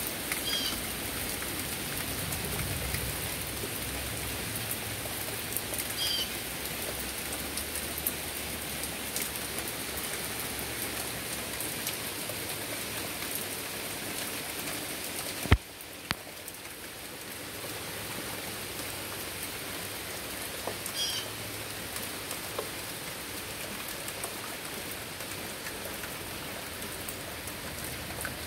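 Heavy rain falling steadily, pattering on a wet wooden deck and the trees, with one sharp click about halfway through.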